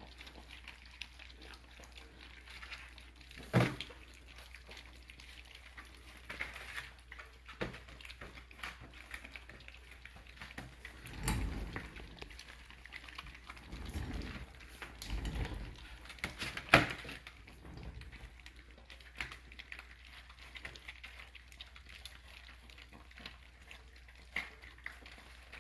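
A litter of American bully puppies eating wet food from a shared dish: faint lapping and smacking with scattered small clicks. Two sharp knocks, about 4 s in and about 17 s in, and a few low thumps in between.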